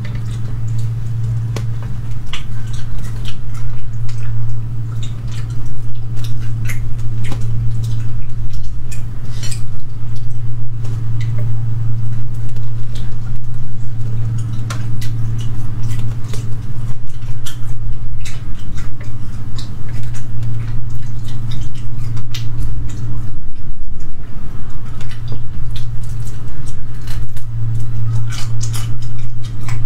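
Crayfish shells cracked and pulled apart by hand and the meat chewed: many short, sharp clicks and crackles scattered irregularly over a steady low hum.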